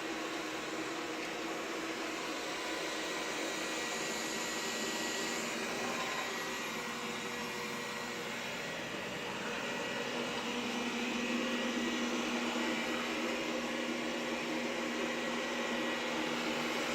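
Xiaomi robot vacuum cleaner running, a steady whir with a few faint tones, getting a little louder about ten seconds in.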